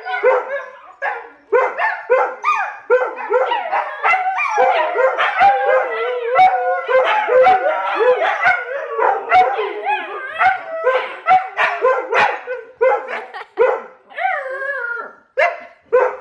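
Alaskan Malamute puppy and Siberian Huskies 'singing' together: an unbroken run of short howls, yips and barks that bend up and down in pitch, several voices overlapping at times.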